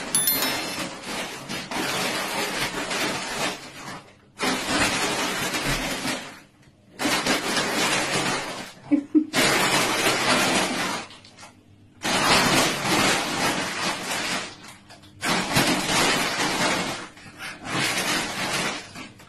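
A large woven plastic shopping bag rustling and crinkling in a series of bursts, each a second or two long, as a small dog moves about inside it on a tiled floor.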